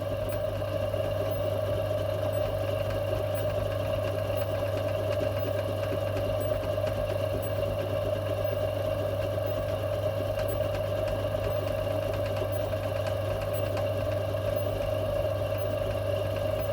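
Metal lathe running steadily with a constant hum, turning an out-of-round steel bar.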